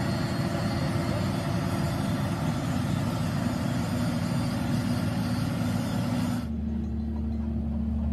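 Diesel engine of a Doosan crawler excavator running steadily. About six seconds in, the sound cuts abruptly to a different, duller steady low hum.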